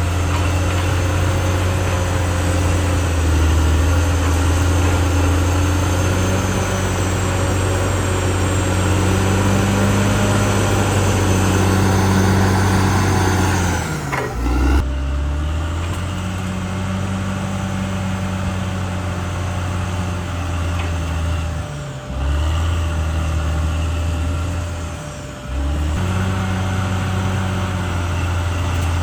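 Caterpillar D6R XL bulldozer's diesel engine running steadily at working revs. Its pitch sags and recovers about halfway through, and it breaks off briefly twice near the end.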